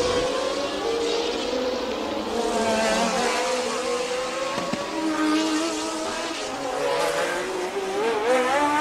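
1982 Formula 1 cars' engines at full throttle down a long straight, several engines heard together, their note slowly rising and falling as the cars approach.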